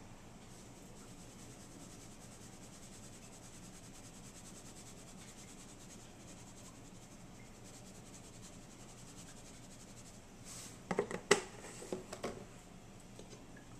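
Faint steady hiss of a pan of broccoli steaming on an electric stovetop, then a quick run of sharp clicks and knocks about eleven seconds in.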